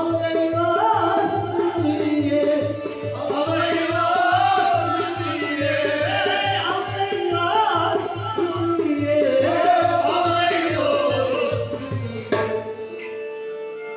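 Live Kashmiri folk music: a singer sings over harmonium, a bowed sarangi-like string instrument, a plucked rabab and a steady hand-drum beat of about three strokes a second. The drum beat stops about a second before the end and the music thins out.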